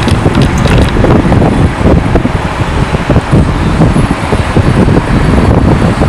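Boeing 767 jet engines running loud, a continuous heavy rumble with wind buffeting the microphone.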